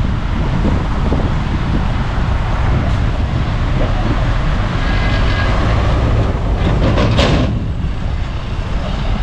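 Heavy diesel earthmoving machinery running at work, a loud steady low rumble, with a short hiss about seven seconds in.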